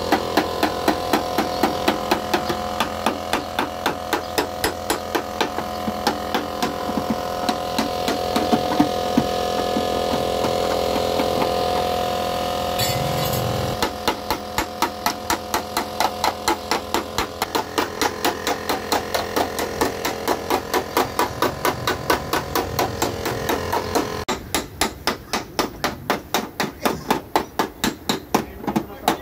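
Hammer tapping repeatedly on a car's sheet-metal body panel, about three blows a second, as in panel-beating dent repair.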